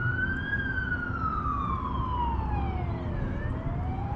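An emergency vehicle's siren wailing: one tone slowly rising, then falling over about three seconds and rising again. A steady low rumble runs under it.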